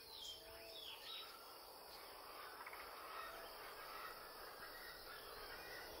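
Faint outdoor nature ambience: a soft insect and cricket background with a few faint bird chirps, the clearest near the start.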